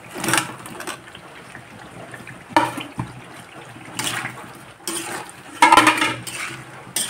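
Fried raw-banana pieces tipped from a plate into a steel kadhai of wet, frying masala and stirred in with a metal ladle. It comes as a handful of separate bursts of food sliding in and ladle scraping, the loudest a little before the end.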